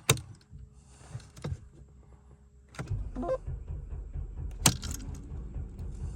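Vehicle engine being started off small solid-state jump starters: a few clicks, then about three seconds in the engine catches and settles into a steady low idle.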